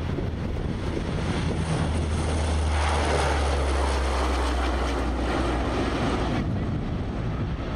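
Lockheed C-130H Hercules' four Allison T56 turboprops making a low pass with the propellers droning deeply. The sound swells to its loudest about three to four seconds in as the aircraft goes by, then eases off.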